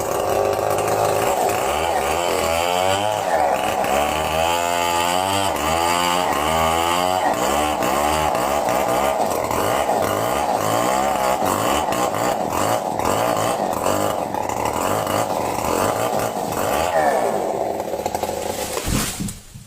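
Chainsaw running and cutting, its engine pitch wavering up and down as it works through the wood; it stops shortly before the end.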